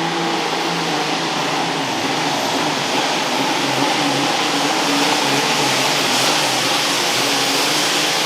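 Super Farm class pulling tractor's modified diesel engine running loud and steady at full throttle under load, pulling the sled.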